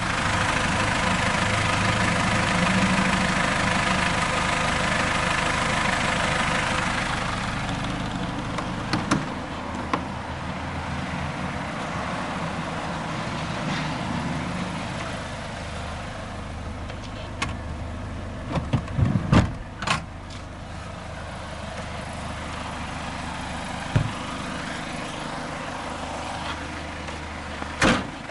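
Mazda Bongo Friendee's 2.5-litre turbo-diesel engine idling steadily. It is louder for the first several seconds, then settles lower. Several sharp knocks and clicks come over the hum, with a cluster about two-thirds of the way through.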